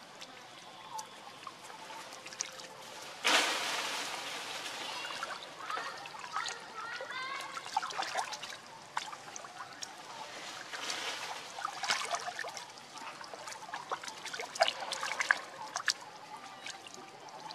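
Long-tailed macaques swimming and splashing in a shallow pond: water trickling and sloshing with many short splashes, the loudest one about three seconds in.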